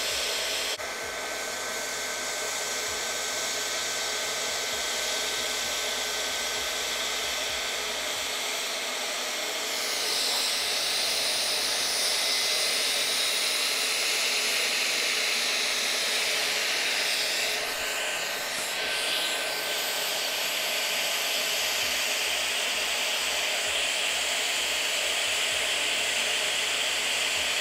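Hot-air plastic welding gun blowing a steady hiss of hot air through its speed tip while HDPE welding rod is fed into the seam. The hiss grows a little louder about a third of the way in.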